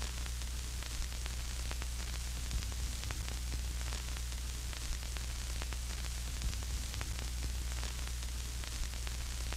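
Analog TV-style static: a steady hiss of noise over a low hum, with scattered crackles.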